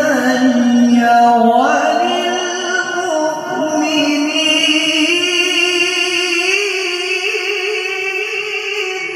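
A qari's voice in melodic Quranic tilawah recitation, drawing out long ornamented notes in one continuous melisma. The pitch climbs about two seconds in and then holds high with small wavering turns.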